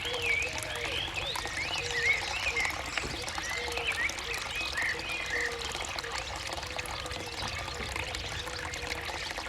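Outdoor nature chorus of many birds chirping and twittering in short, quick notes, with a short low call repeating about once a second over a steady low rumble.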